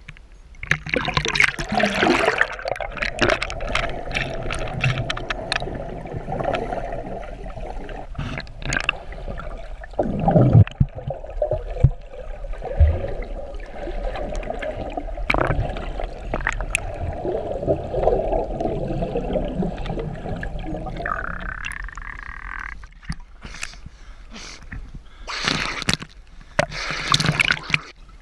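Lake water gurgling and sloshing around a waterproof action-camera housing held at and below the surface, muffled while the camera is under the water, with scattered clicks throughout. Separate splashes come near the end.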